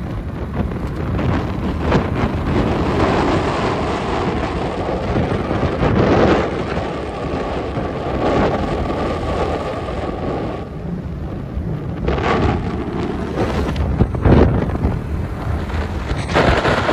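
Wind buffeting the microphone from a moving vehicle, over a steady rumble of road and engine noise, with louder gusts about six seconds in and again near the end.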